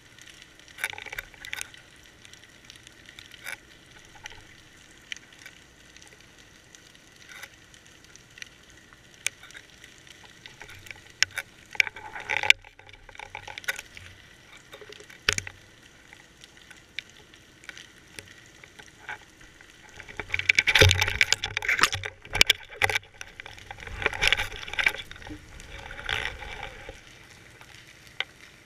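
Underwater sound heard through a GoPro's waterproof housing on a fishing line: scattered clicks and crackles, thickening into two dense spells of crackling and knocking about two-thirds of the way through.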